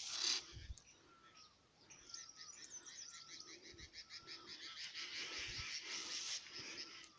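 A chorus of small birds chirping and calling over one another, with a short falling note repeated about twice a second and a few brief low thumps.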